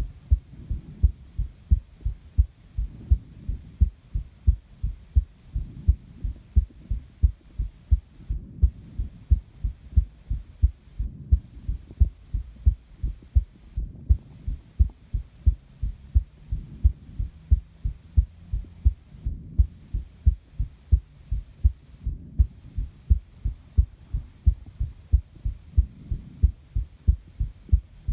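Human heartbeat picked up at the chest: a steady, regular rhythm of low lub-dub thumps.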